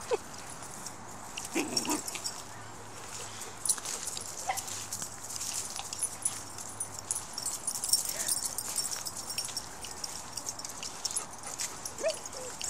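Dogs playing, giving a few brief yelps and whines: one right at the start, one about two seconds in, and more near the end. Under them runs a steady crackle of scuffing and crunching on the gravel ground.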